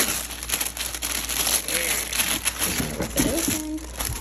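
Tissue paper crinkling and rustling as hands tear open its sticker seal and pull the wrapping apart.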